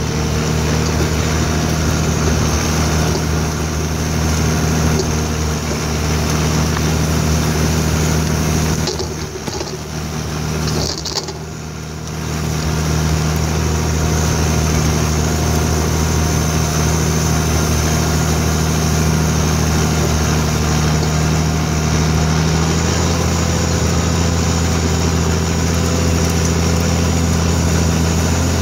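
Oliver 1855's six-cylinder turbo diesel engine running steadily under load while pulling a four-bottom moldboard plow through sod. It goes briefly quieter about ten seconds in.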